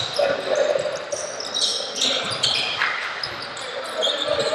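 A basketball being dribbled during a five-on-five game, with short high squeaks and players' voices.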